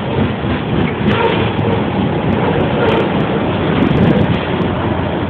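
Loaded coal cars of a Norfolk Southern freight train rolling past close by: a steady, loud noise of steel wheels running on the rails.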